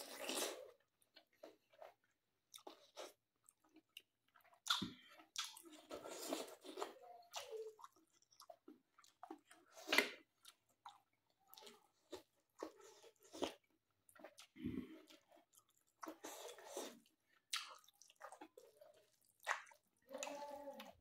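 A person chewing a mouthful of mutton, rice and squash leaves eaten by hand: irregular short smacks and chews with brief silent gaps between them.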